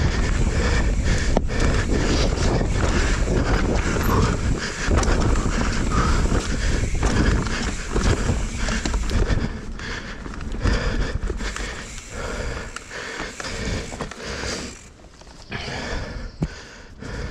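Mountain bike descending a rocky trail: tyres rumbling and clattering over rock and dirt, with the chain and frame rattling at every bump and wind buffeting the microphone. The clatter is loud and dense at first, then eases and thins out after about ten seconds as the ground smooths.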